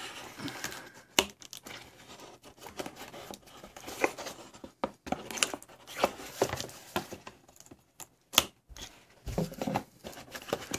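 A knife slitting the packing tape along a cardboard box's seam, then the cardboard flaps opened and handled, with irregular tearing, scraping and rustling and a few sharp clicks.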